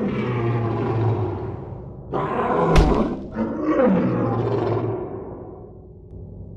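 Deep roaring sound, swelling again a little after two seconds with a sharp crack near the middle, then fading away over the last couple of seconds.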